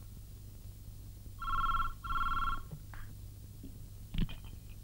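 Telephone ringing in a double-ring cadence: one ring-ring, two short rings close together, about a second and a half in, calling for someone to answer. A brief thump comes near the end.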